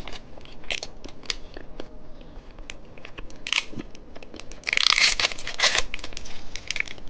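Plastic snack wrapper being crinkled and torn open, with scattered small clicks and crackles. The loudest rustle comes about five seconds in.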